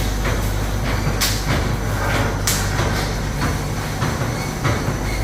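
Automatic round wire-cage welding machine running: a steady low electrical hum with short, sharp hissing snaps repeating about every one to one and a half seconds as it works through its cycle.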